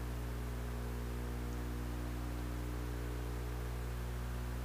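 Steady electrical mains hum, a low drone with several higher tones stacked above it, over faint hiss. It holds unchanged throughout, with no knocks or handling sounds standing out.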